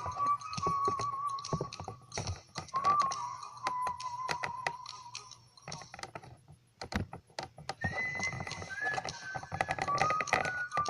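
Held, wavering electronic tones stepping between a few pitches, over a busy patter of quick clicks and taps.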